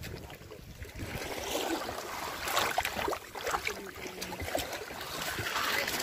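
Bare feet crunching over a shingle beach of small pebbles, with sharp irregular clicks of stones, mostly in the middle of the clip, over the wash of small waves on the shore.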